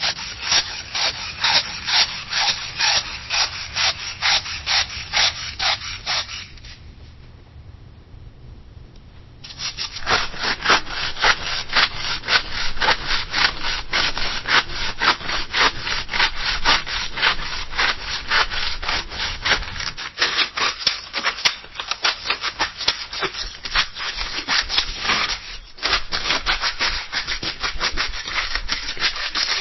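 Scissors cutting through paper in a rapid train of crisp snips. About six seconds in, the cutting drops quiet for about three seconds, then resumes with faster, denser cuts.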